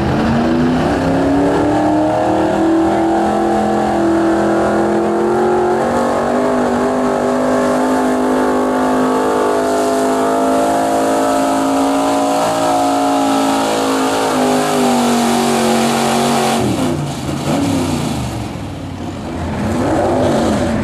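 Pro stock pulling truck's engine held at full throttle through a pull. Its pitch climbs over the first few seconds, then holds. About sixteen seconds in it drops sharply off throttle, and near the end it is revved up and down a few times.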